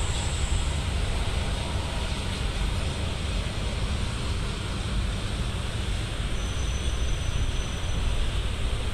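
Wind buffeting the microphone outdoors: a steady, gusting rush heavy in the low end, with no distinct events. A faint thin high tone sounds for about two seconds near the end.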